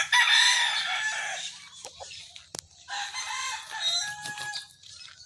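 Gamecock roosters crowing: one loud, drawn-out crow of about two seconds at the start, then a second, quieter crow about three seconds in.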